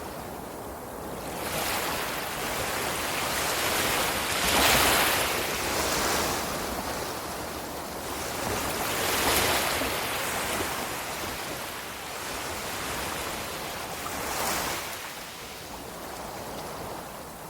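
Ocean surf: waves breaking and washing in a continuous rush, with several surges as larger waves come in, the strongest about five seconds in and others around nine and fourteen seconds.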